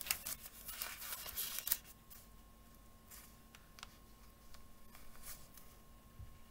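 Thin Bible pages rustling as a book is leafed through for about the first two seconds, then a few faint soft ticks of paper or handling.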